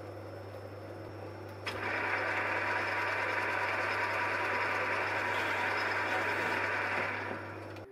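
Metal lathe spinning an aluminium workpiece while a twist drill in the tailstock chuck bores into it: a steady machine hiss over a low hum. The hiss starts with a sharp click about a second and a half in, after a quieter stretch with only the hum, and fades near the end.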